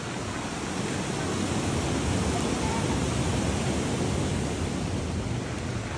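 Wind buffeting the microphone while cycling along the trail, a steady rushing noise that swells a little over the first couple of seconds.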